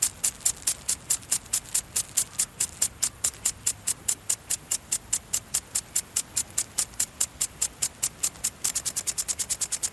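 Automatic garden sprinkler spraying water in short, evenly spaced hissing bursts, about four or five a second. Near the end the bursts speed up to about eight a second.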